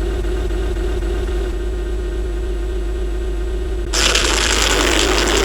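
Edited sound effects: a steady droning tone over a deep rumble, then a noisy rushing hiss cuts in about four seconds in.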